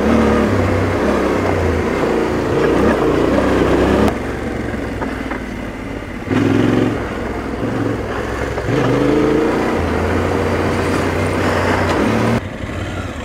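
Trail motorcycle engine running as it is ridden off-road. The engine speed and loudness step up and down several times as the throttle is opened and closed.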